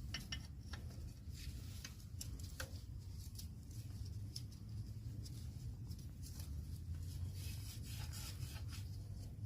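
Faint scattered clicks and light rubbing of small metal brake parts being handled, as the parking-brake arm, clip and washer are fitted onto a new drum-brake shoe, over a low steady rumble.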